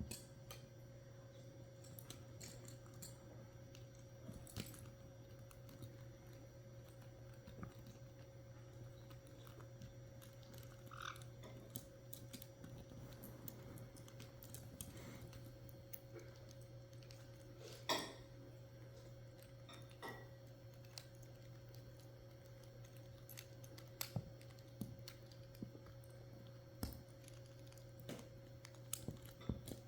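Caique parrots chewing and prying apart a plastic Lego model: scattered faint clicks and small snaps of beaks on plastic bricks, with one louder snap past the middle. A steady low hum runs underneath.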